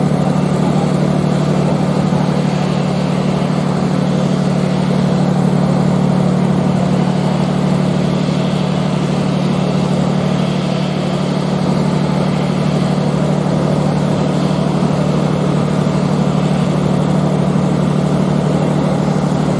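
An engine running steadily at idle: a constant low hum with a hiss above it, unchanging throughout.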